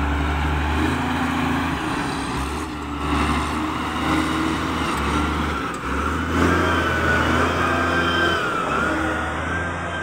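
SDLG wheel loader's diesel engine running as the machine drives past close by on a dirt track. A thin whine rises and wavers over the engine hum in the second half.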